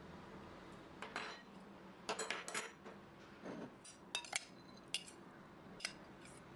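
Light clinks and scrapes of tableware: a glass bowl and utensil knocking against a ceramic plate as cooked couscous and green lentils are tipped out. A handful of separate clicks, with a busier cluster about two seconds in and another about four seconds in.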